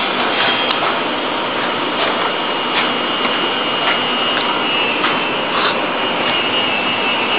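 Steady loud rushing noise with a faint high whine in it, and a few faint knocks or clicks scattered through it.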